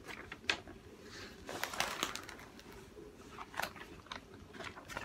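Paper rustling as the release-paper cover on a diamond painting canvas is lifted and smoothed by hand, with a few short crackles about half a second in, near two seconds and past three and a half seconds.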